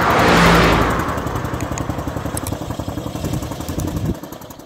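Vintage Austin Seven car driving past close by, its small four-cylinder engine running at a steady pace. Loudest about half a second in as it passes, then fading away over the next few seconds.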